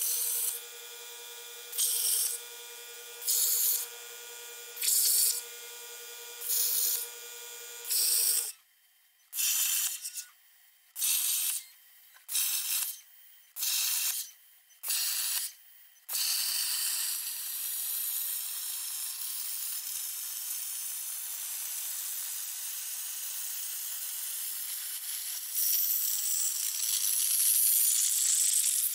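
PrimeWeld Cut60 plasma torch on a CNC table cutting quarter-inch steel plate. For the first half it hisses in short spurts about once a second over a steady air-compressor hum, which stops about eight seconds in. From about sixteen seconds in it hisses continuously, louder near the end.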